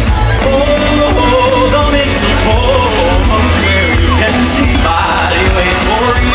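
Loud amplified pop music with singing and a steady heavy beat, with crowd yells and whoops mixed in.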